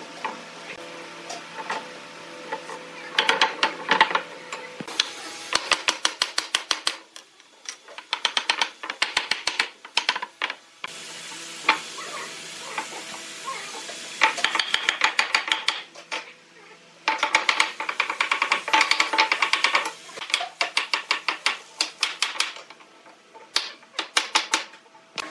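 Wooden mallet tapping glued tenon joints home, fitting turned wooden posts onto a carved wooden panel: several bursts of rapid knocks, wood on wood, with short pauses between. Faint steady background music underneath.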